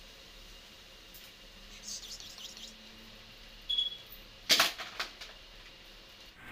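Quiet eating sounds: chapati being torn by hand and chewed, with a few short sharp clicks and mouth smacks bunched about four to five seconds in.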